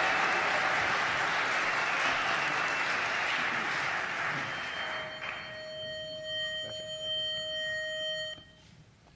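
Audience applauding, fading out about five seconds in. Then a pitch pipe sounds one steady reedy note for about three seconds and cuts off, giving the quartet its starting pitch.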